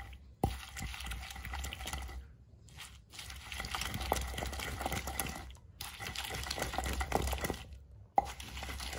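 Hand grinding of dry fruits and spices with milk into a thick paste: a wet rubbing and scraping with irregular small knocks. This is the slow rubbing stage, grinding the paste fine enough to strain through cloth.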